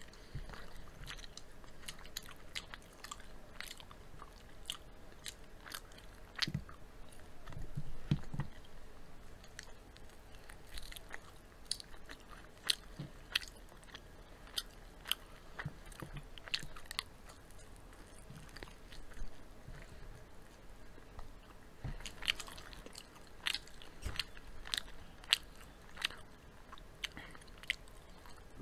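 Two people biting and chewing crispy fried chicken close to the microphone: irregular sharp crackles of the breaded crust breaking, coming thickest in two stretches, with softer chewing in between.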